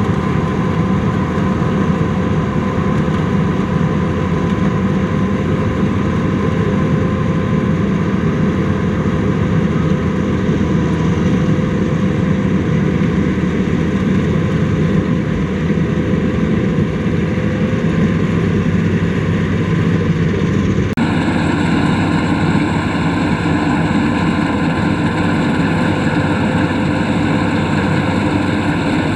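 Combine harvester's engine and machinery running steadily in a continuous drone. About two-thirds of the way through, the sound changes abruptly to a different steady mix of tones.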